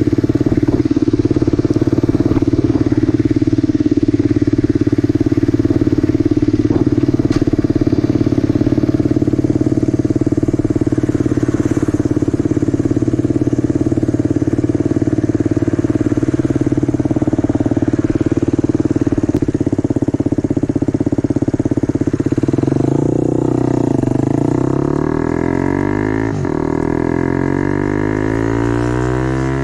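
Motorcycle engine running through a temporary exhaust at a steady pace, then its pitch shifting up and down over the last several seconds as the speed changes.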